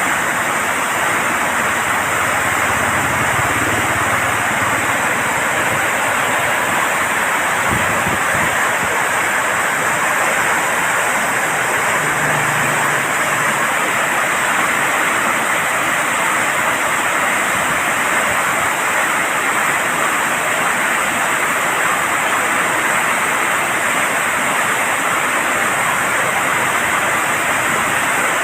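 Floodwater rushing steadily through an opened dam gate, a loud even rush of water being let out during a flood alert.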